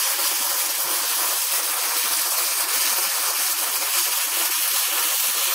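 Wire-fed MIG welding arc on an ATI CW3 converter welding machine, a steady crackling hiss as it lays a continuous seam weld around the turning torque converter.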